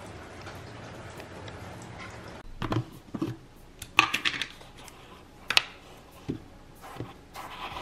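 Steady hiss of rainfall, cut off suddenly; then a metal spoon clinking against a ceramic coffee mug, a handful of sharp clinks about a second apart.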